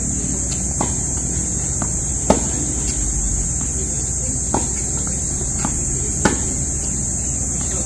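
Tennis rally on a hard court: sharp racket strikes and ball bounces, the two loudest hits from the nearby player about two seconds in and again about six seconds in. A steady high-pitched insect drone runs underneath.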